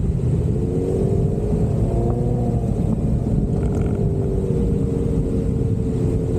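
Jeep Wrangler engine running under load during off-road driving, with a heavy low rumble and its pitch rising a little and then easing back.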